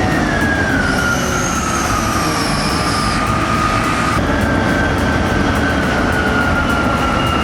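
Heavy earth-moving machine running, with a high whine that slowly falls in pitch over its steady rumble; the sound changes abruptly about four seconds in.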